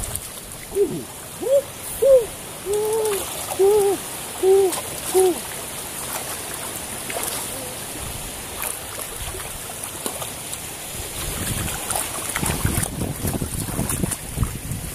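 A series of about eight short hooting calls, each arching up and down in pitch, in the first five seconds or so. After that, water sloshing.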